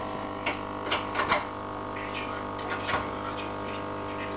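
Aquarium pump giving a steady electric hum with many steady tones, with a few light clicks in the first second and a half and one more about three seconds in.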